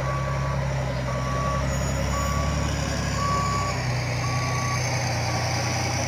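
LGMG MT60 mining dump truck's reversing alarm beeping about once a second, a steady single-pitched beep, over the low steady running of its diesel engine: the truck is backing up.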